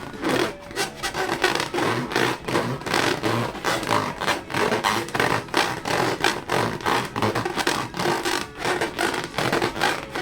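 Balloons being rubbed and squeezed by hand: a fast, irregular run of short rubbing strokes.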